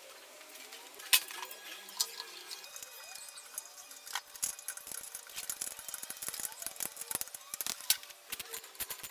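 Metal clicks and knocks as a motorcycle muffler is pushed onto its exhaust pipe and its mounting bolt fitted: a few sharp single knocks, then a run of quick small clicks in the second half.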